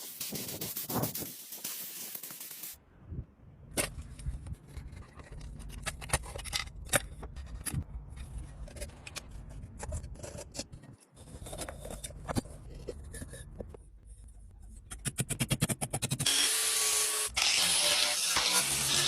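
A spray hissing at the start, then irregular clicks and scrapes of parts and tools being handled over a low hum. Near the end comes a quick run of rapid rattling ticks, and then a steady, louder spray hiss resumes.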